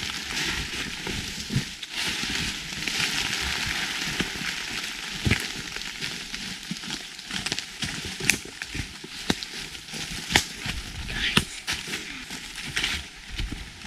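Footsteps rustling and crunching through a deep layer of fallen autumn leaves, with frequent sharp crackles among the steady rustle.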